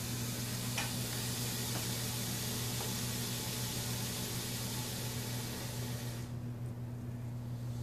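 Colombian boa constrictor hissing: one long, steady exhaled hiss that stops about six seconds in. The hiss is a sign of an upset, defensive snake.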